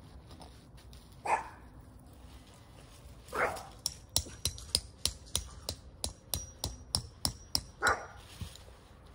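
A dog barks three times, the loudest sounds here. Between the second and third barks comes a steady run of about a dozen sharp, ringing metallic taps, roughly three a second: a metal tent stake being hammered into the ground.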